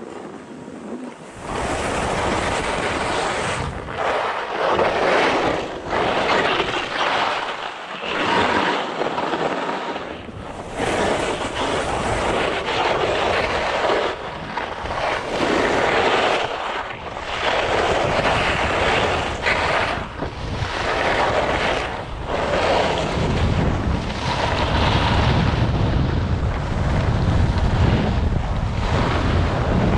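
Skis scraping and carving on hard-packed snow in a rhythmic run of turns, a surge of scraping with each turn about every second or so, with wind buffeting the microphone. The low wind rumble grows stronger in the last several seconds.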